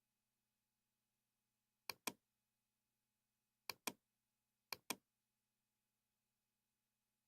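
Computer mouse clicking: three quick double clicks, about two seconds, three and a half seconds and five seconds in, over a faint steady hum.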